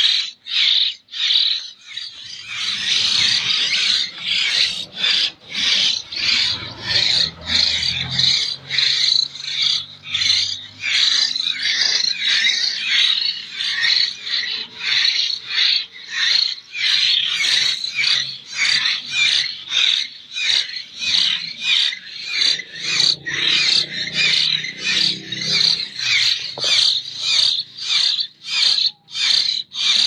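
A brood of hill myna nestlings giving high begging calls over and over in a steady rhythm, about one and a half calls a second: young chicks still being hand-fed, calling for food.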